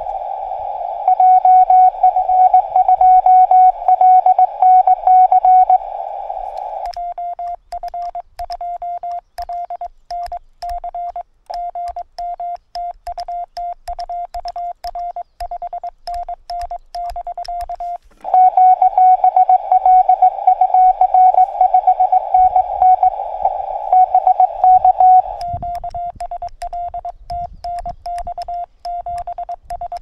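Morse code (CW) tones at about 700 Hz from a Yaesu FT-818ND transceiver. The rapid keying sounds as a loud signal over receiver hiss at the start and again about 18 seconds in, and as a cleaner, quieter keyed tone in between.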